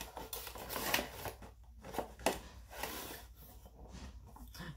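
Rustling of packaging being handled, with a few light clicks and knocks.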